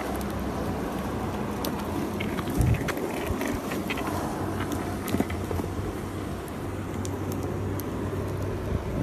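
Steady low machine hum with scattered light clicks and a louder knock about three seconds in.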